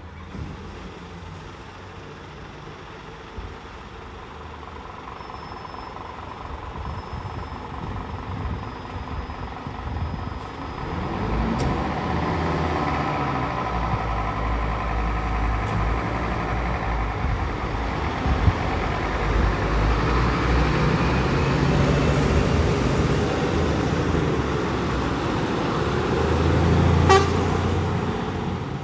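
Diesel engines of two fire engines, one a Scania, running and growing louder as they pull out and drive off on an emergency call. A short horn blast near the end is the loudest moment.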